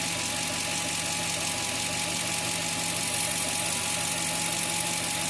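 2000 Toyota Tundra's 4.7-litre V8 idling steadily, with no vacuum-leak hiss now that the leak behind its P0171 lean code has been dealt with.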